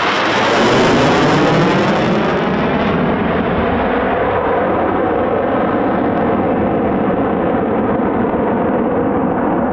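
A Eurofighter Typhoon's twin EJ200 turbofans passing overhead and heading away. The loud jet noise peaks about a second in, its pitch sliding down as the jet passes. The high hiss fades out by about three seconds in, leaving a steady rumble as the jet recedes.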